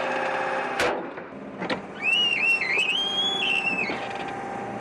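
A railway switch being thrown: the point mechanism runs with a steady hum and two sharp clicks, then the sliding switch blade gives a wavering, high metallic squeal for about two seconds.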